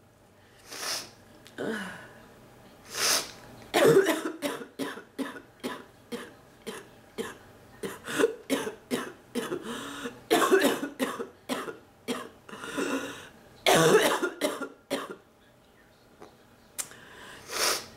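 A sick woman's barking cough, coming in fits. A few single coughs come first, then a long run of rapid coughs from about four to fifteen seconds in. After a short pause come two more coughs near the end. The cough is a sign of the respiratory illness affecting her throat.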